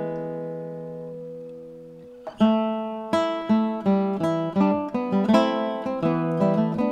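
Acoustic guitar background music. A chord rings and fades for about two seconds, then plucked notes pick up again at a lively pace.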